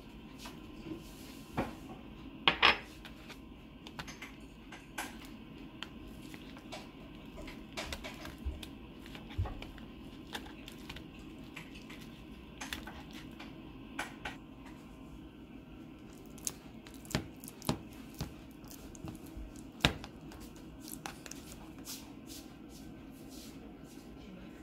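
A metal fork mashing peeled bananas in a plastic tub, with scattered clicks and taps of the fork against the tub. The loudest is a pair of sharp clinks about two and a half seconds in.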